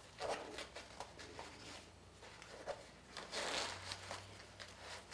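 Faint handling noise of a pistol being pushed into an elastic belly band holster: fabric rustling and light clicks, with a louder rustle about three and a half seconds in.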